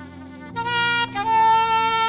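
Alto saxophone playing a melody: after a short pause it comes in about half a second in with a few quick notes, then holds a long note.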